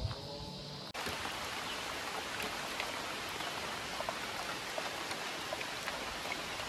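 Steady hiss of water on a clear forest stream, sprinkled with small drips and splashes, starting abruptly about a second in.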